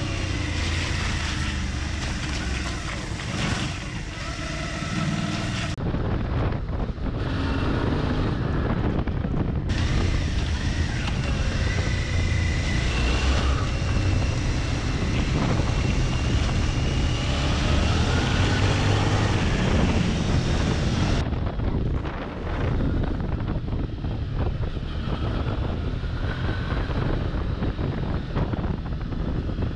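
Suzuki V-Strom 650's 645 cc 90-degree V-twin running under way, its pitch rising and falling with changes of speed, with wind buffeting the microphone. The sound changes abruptly a few times where the footage cuts.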